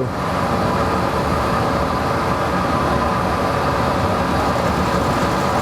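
Monarch 10EE engine lathe running steadily, its spindle turning at about 500–600 RPM, an even machine hum with several faint steady tones.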